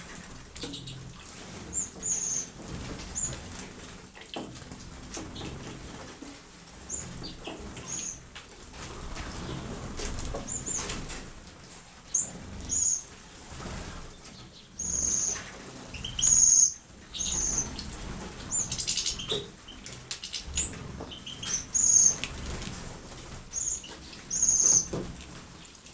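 Small pet birds bathing in an aviary: wings fluttering and splashing in water in repeated short bouts, with frequent short high-pitched chirps throughout.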